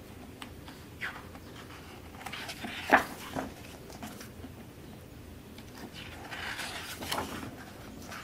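Pages of a large concert program book being turned by hand: a crisp paper flap about three seconds in, the loudest sound, with soft page handling clicks and a longer rustle of sliding paper around six to seven seconds.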